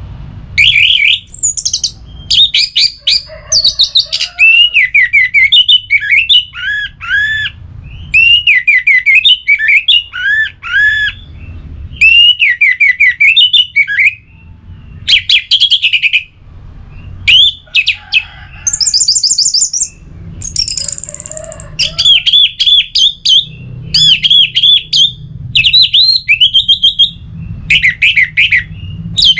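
Orange-headed thrush singing: a run of varied phrases of quick, arching whistled notes and chatters, each phrase a second or two long, with short pauses between, over a faint low background hum.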